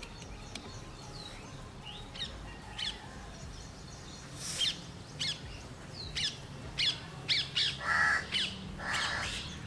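Birds calling: a run of short, sharp high chirps begins about four and a half seconds in, coming roughly twice a second, with two longer, harsher calls near the end.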